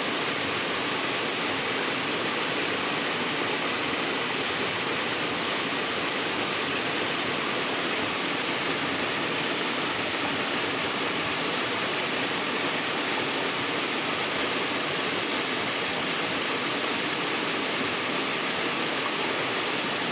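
Waterfall and river water rushing steadily, a dense even roar of falling and flowing water.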